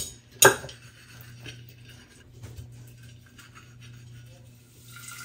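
A sharp clink of kitchenware about half a second in, then faint rubbing and light knocks as a coffee maker is scrubbed by hand, over a low steady hum.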